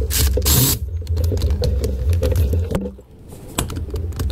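Hand tool clicking and scraping against fittings in a jet ski's engine bay, many small knocks over a low steady rumble, with a short burst of hiss-like noise near the start.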